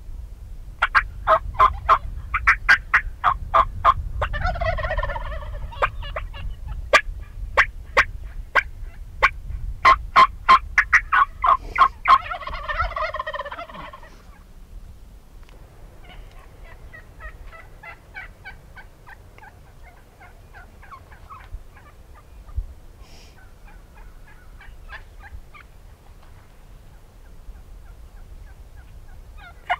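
Merriam's turkeys calling: a quick run of sharp calls broken by two loud gobbles, about four and twelve seconds in, then fainter gobbling and calling for the rest.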